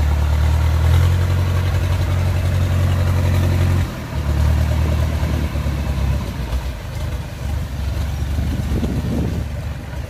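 Kubota DC70 combine harvester's diesel engine running steadily as the tracked machine drives off, with a brief dip about four seconds in and fading toward the end as it moves away.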